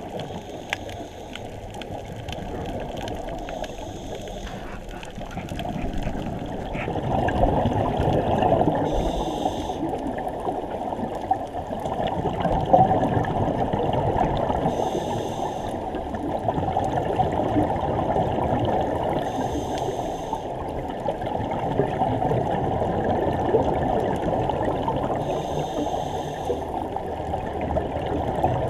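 Underwater sound heard through a GoPro's waterproof housing: a steady, muffled rush of water with scuba divers' exhaled bubbles gurgling. A fainter, brighter bubbling comes back every five or six seconds, in time with breaths.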